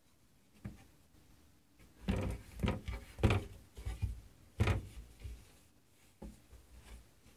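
Cupboard door knocking against its frame as a cat paws at it, trying to pull it open: one knock early, then a run of quick knocks and thuds about two seconds in, and another single knock near the end.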